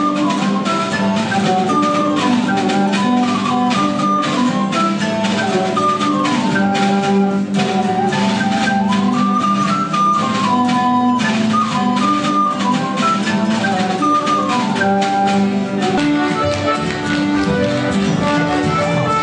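Live folk dance music from a small band with accordion and acoustic guitars, playing a quick, busy tune over a steady beat.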